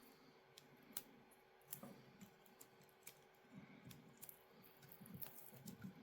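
Faint, scattered clicks and light knocks from hands handling wires and tape at a wiring splice, over a faint steady hum.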